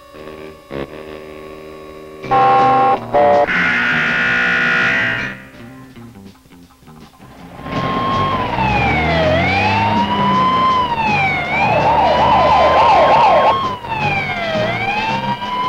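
Music with loud held tones, then about eight seconds in a fire engine siren starts wailing, rising and falling about every two and a half seconds, with a couple of seconds of fast yelping near the middle.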